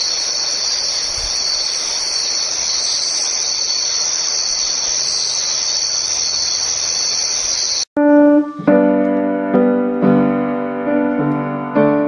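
Steady chorus of crickets chirping, a night-time ambience that cuts off suddenly about eight seconds in, when piano music begins.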